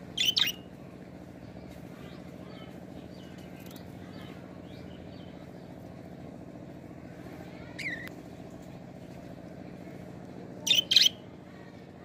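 Budgerigars chirping. Sharp, high-pitched calls come about a third of a second in, again near eight seconds, and as a quick double call near eleven seconds, with faint soft chattering between them over a steady low hum.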